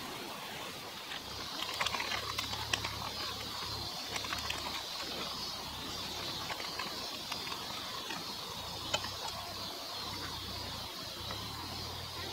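Outdoor campsite ambience with birds calling steadily in the background, and a few light clicks and knocks as food and a knife are handled on a cutting board, most of them in the first few seconds.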